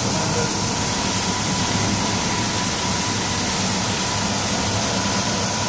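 Automatic carpet washing machine running with its brush heads scrubbing a wet, foamy carpet: a steady mechanical noise with a low hum and a faint steady high tone.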